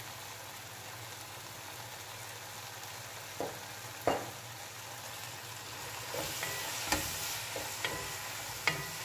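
Diced beetroot and carrot with tomato paste sizzling steadily as they fry in an enamel pot. There are two knocks a little past the middle, and in the second half a wooden spoon stirs the vegetables with scraping and a few clicks against the pot.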